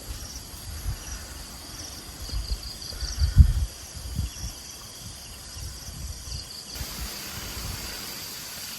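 Insects such as crickets chirping steadily in a high, slightly pulsing drone, with a few soft low thumps in the first half, the strongest about three and a half seconds in.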